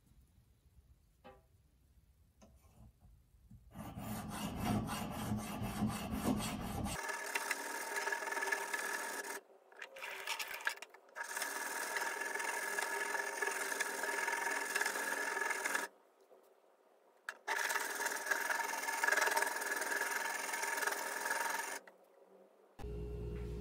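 A stainless-steel pocket-knife blade drawn back and forth across a whetstone in sharpening strokes, a steady rasping scrape. It starts a few seconds in and runs in stretches of several seconds, broken by short pauses.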